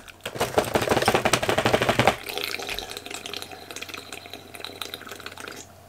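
Carbonated soda fizzing and being sipped from an aluminium can in one long sip. A dense crackle for about two seconds gives way to a softer fizz that fades near the end.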